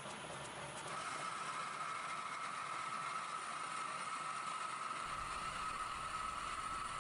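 Torsa metal lathe running, building up over the first second and then holding steady with a high tone in its running noise, while the compound slide is hand-fed to bore an internal cone in cast iron.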